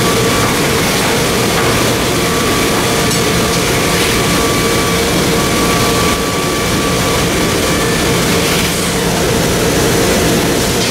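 Steady, loud machinery noise of a furniture factory floor, with a constant hum at two pitches running under it.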